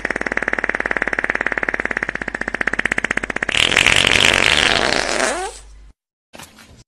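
A person farting: one long, buzzing fart of rapid flutters, turning louder and hissier about three and a half seconds in, then trailing off.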